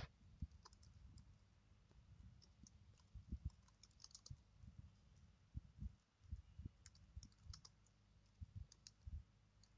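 Faint, irregular keystrokes of someone typing on a computer keyboard.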